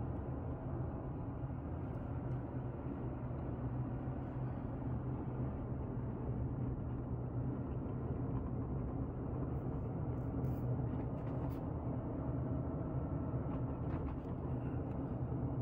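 Steady low hum of a car driving slowly, engine and tyre noise heard from inside the cabin.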